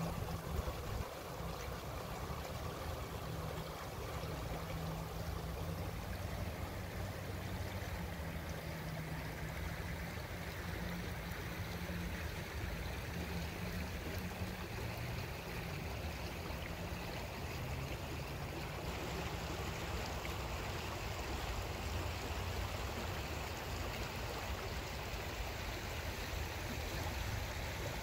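Shallow rocky river flowing over stones: a steady rush and babble of running water, with a low rumble underneath.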